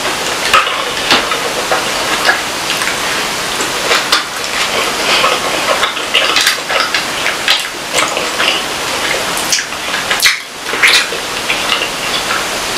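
Eating sounds: chewing through a meal of fish and fried plantain, with frequent clicks and clinks of cutlery against a plate.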